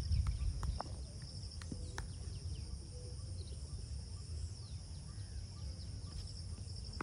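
Insects chirring steadily in a high, finely pulsing drone over wind rumbling on the microphone, the rumble strongest at the start. A few faint short calls and clicks come through now and then.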